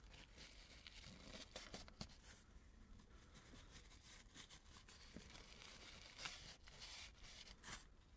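Faint, irregular rubbing and rustling of a cloth wiping excess adhesive off a car interior trim part, with a few soft clicks.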